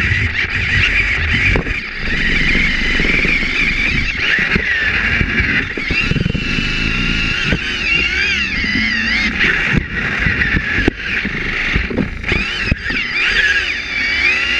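Small electric gear motors of a sumo robot whining close up, the pitch rising and falling as the robot drives and pushes, over a low rumble of wheels on the plywood ring. Several sharp knocks come from the robots bumping.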